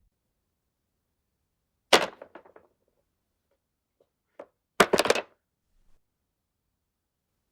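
A dropped hard object hitting the floor and bouncing in quick clattering hits, then a second drop about three seconds later landing in a short cluster of impacts.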